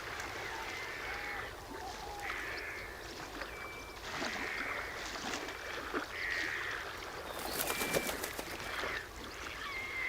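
Wetland birds calling, ducks among them, in repeated bouts with a few short whistled notes and scattered clicks.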